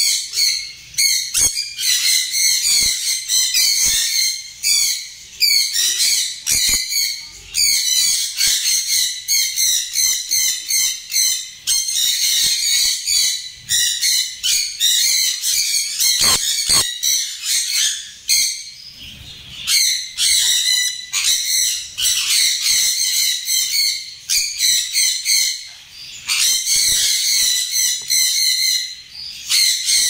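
Sun conure calling over and over in quick, high, shrill chirps, with a couple of short pauses.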